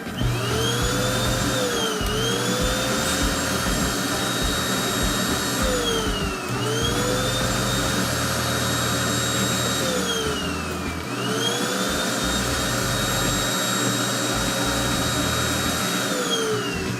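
A small electric motor whining as it spins up, runs at a steady high pitch for a few seconds, then winds down, repeated about three times.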